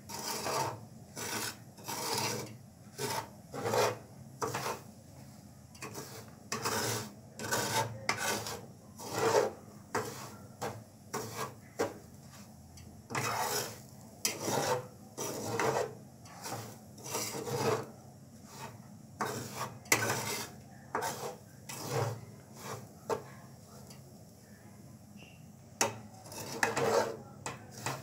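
A flat metal spatula scraping and stirring dry, grainy semolina (suji) around a frying pan, in repeated rasping strokes about one a second, with a pause of a few seconds near the end.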